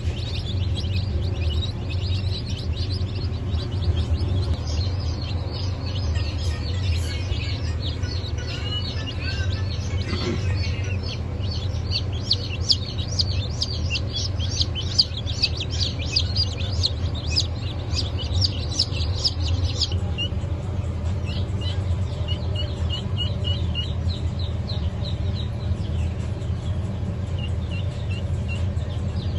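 Newly hatched chicks peeping constantly, many short high chirps overlapping. About two-thirds of the way through the chorus thins to sparser, evenly repeated peeps, over a steady low hum.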